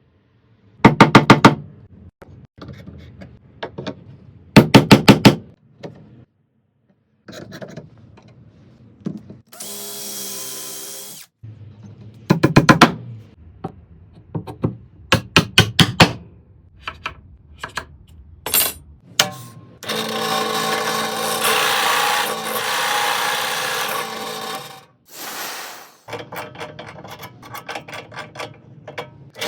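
Power drill running in several bursts, the longest about two-thirds through, drilling into round wooden rods. Between the bursts come short runs of rapid sharp clicking.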